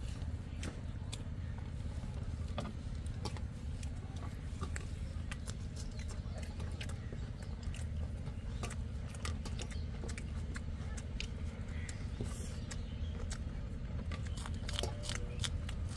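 Two people eating rice and chicken curry by hand from steel plates: scattered small clicks, smacks and scrapes from chewing and from fingers on the plates, over a steady low rumble.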